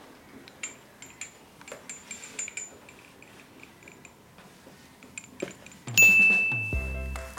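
Pieces of a toy kitchen set clinking and tapping as they are handled: scattered light clicks, each with a short high ring. About six seconds in comes a loud bright chime, and then music with a steady beat starts.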